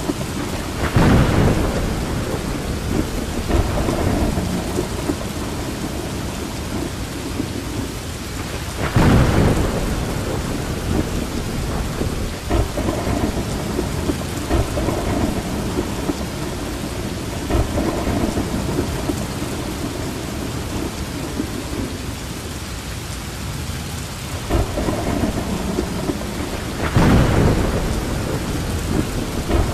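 Steady rain with thunder: loud rumbles of thunder about a second in, about nine seconds in and near the end, and fainter ones between.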